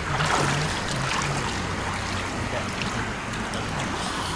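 Steady rushing noise of a river flowing past, even and unbroken, with no distinct events.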